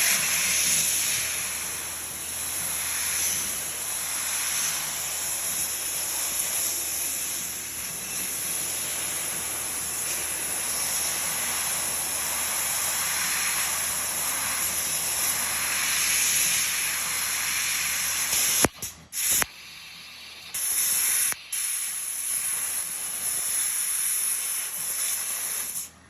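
Compressed-air assist gas at about 230 psi hissing steadily from a fiber laser's cutting head as it cuts 4 mm stainless steel. The hiss breaks off briefly a few times about three-quarters of the way through, as the head moves between cuts, then stops abruptly.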